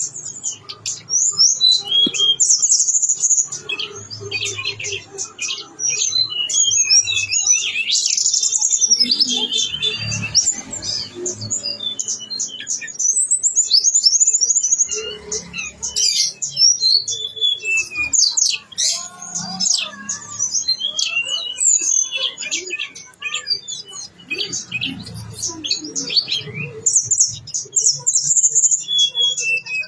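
Tledekan gunung songbird singing a long, rapid, varied song of chirps, trills and whistled glides with hardly a pause, with mimicked phrases of other birds woven in.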